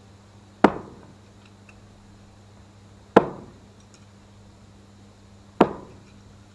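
Three sharp, loud cracks about two and a half seconds apart, each trailing off briefly.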